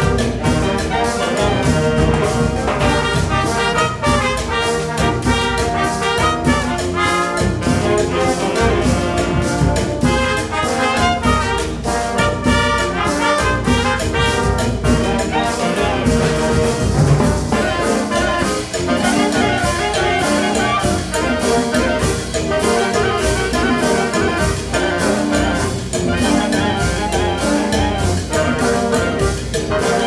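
A wind band playing live: clarinets, saxophones, trumpets and trombones over drums and a sousaphone, with a steady beat.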